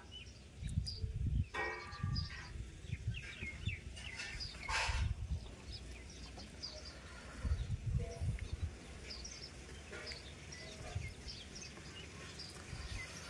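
Birds chirping and a hen-like clucking call in the background, over irregular low thumps and rumble.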